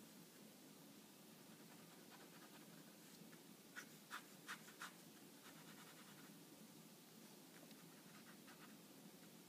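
Pen scratching on paper while drawing: faint short strokes, with four quick, louder strokes a little before the middle.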